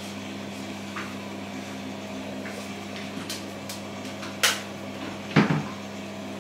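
A steady low hum with a few short knocks and clicks on top, the two loudest about four and a half and five and a half seconds in.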